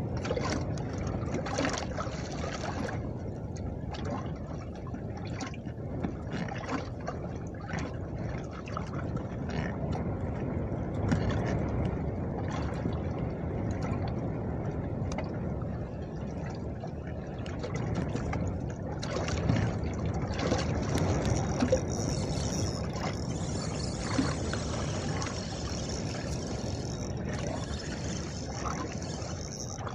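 Wind buffeting the microphone and choppy lake water lapping and slapping against the hull of a bass boat, with a few sharper knocks.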